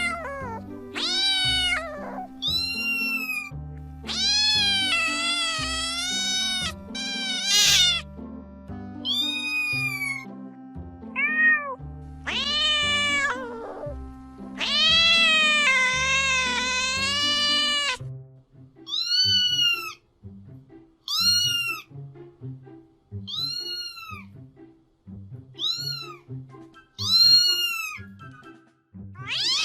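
Domestic cats meowing over background music: long, drawn-out, wavering meows at first, then from about halfway through a string of short, high meows, about one a second.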